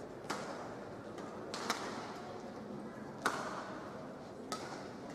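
Badminton rally: four sharp racket strikes on the shuttlecock, about a second and a half apart, each ringing on briefly, over a steady background hum.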